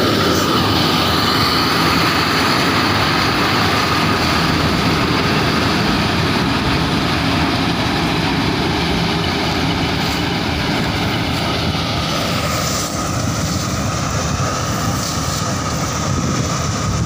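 Preet combine harvester running under load while harvesting standing maize: a loud, steady machine noise with a high whine running through it, easing a little about thirteen seconds in.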